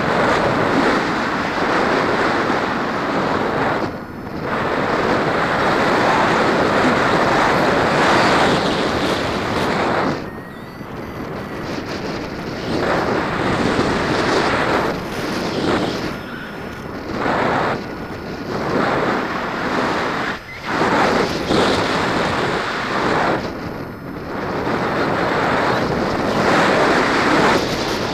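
Wind noise from the airflow of a paraglider in flight buffeting the camera's microphone: a loud, steady rush that surges and eases off briefly several times.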